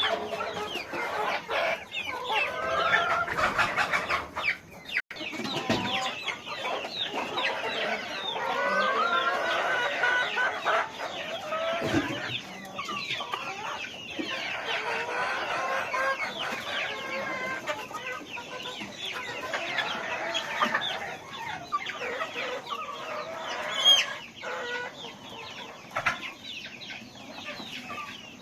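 A large flock of chickens on a poultry farm clucking and calling continuously, many birds at once. One louder, higher call stands out near the end.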